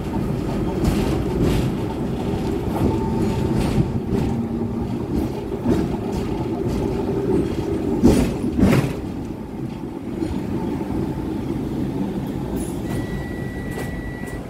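Hong Kong double-decker tram running along the street, heard from inside the car: a steady low rumble with rattling and clatter from the wheels on the rails, and two louder knocks close together about two-thirds of the way through. A thin, steady high tone comes in near the end.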